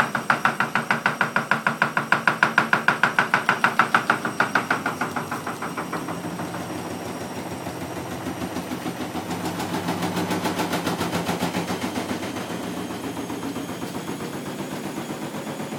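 Washing machine on its spin with the transit bolts still in, the drum knocking hard and fast against the cabinet, several knocks a second over a mechanical drone. The knocking is loudest for the first few seconds, eases, and swells again about ten seconds in. Left-in transit bolts keep the drum from moving on its suspension, so it hammers the whole machine.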